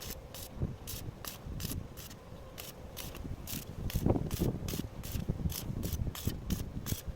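Steady mechanical clicking, about three to four clicks a second, with irregular low knocks; the loudest knock comes about four seconds in.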